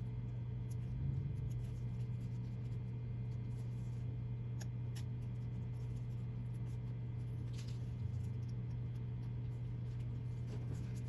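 Faint light scratching and a few small ticks as an X-Acto knife lifts a paint stencil off a painted leather sneaker, over a steady low hum.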